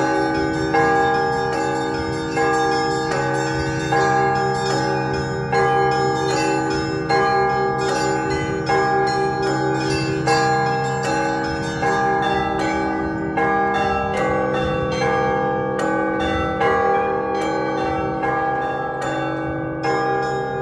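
Russian Orthodox festive church bell ringing: several bells rung together in a repeating rhythmic pattern. A small bell is struck rapidly, several times a second, over regular strokes of larger bells, and a low bell hums beneath.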